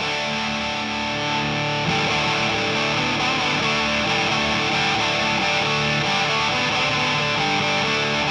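Electric guitar played through the O.C.E. Hammer, a Big Muff-style fuzz pedal, into a Two-Rock amp: thick, sustained fuzzed chords that get a little louder about two seconds in.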